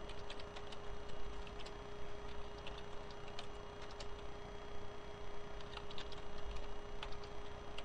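Computer keyboard keystrokes, scattered light clicks as numbers are typed into input fields, over a steady low hum.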